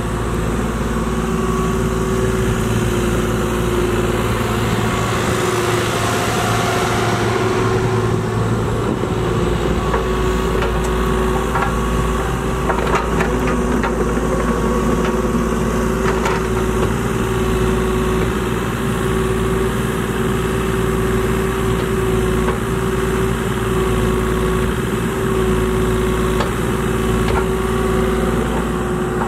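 Kubota KX040-4 mini excavator's three-cylinder diesel engine running steadily while the boom, arm and bucket are worked hydraulically, with a few light knocks about halfway through.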